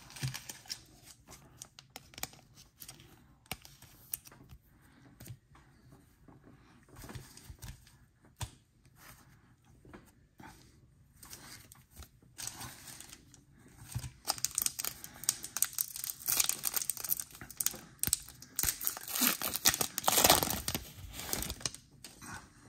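The wrapper of a 2022 Panini Select Football card pack being crinkled and torn open. Soft scattered rustles come first, and the crinkling is dense and loudest over the last several seconds.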